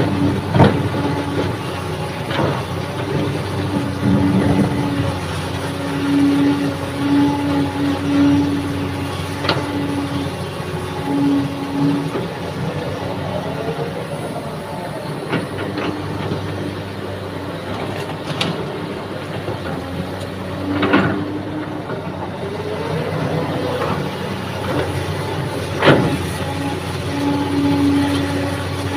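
Kobelco hydraulic excavator working while it digs and loads a dump truck: the diesel engine runs steadily under load while a humming tone from the hydraulics comes and goes and bends in pitch. Several sharp metallic clanks and knocks from the bucket and boom are scattered throughout.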